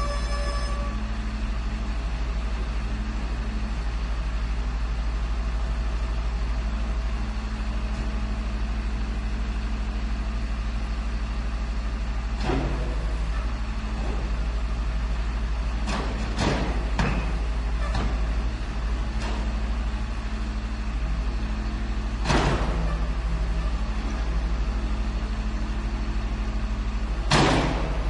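Garbage truck engine idling steadily, with a series of sharp bangs and knocks scattered through it: a cluster of four in the middle and two louder single bangs near the end.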